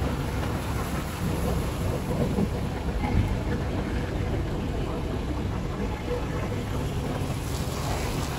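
Steady low rumble of a road vehicle on the move, with wind buffeting the microphone.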